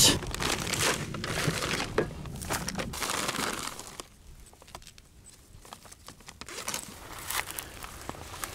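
Crinkling, rustling handling noise with irregular clicks as a folding fish trap net is handled and readied. The noise dies down for a couple of seconds midway and picks up again near the end.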